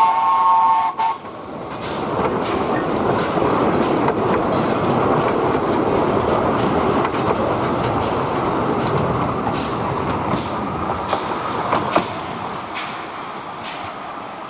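The GR-280 steam locomotive's whistle sounding, cutting off about a second in. Then its passenger coaches roll past with a steady rumble and rattle of wheels on rail and the odd sharp click, fading a little as the train moves away.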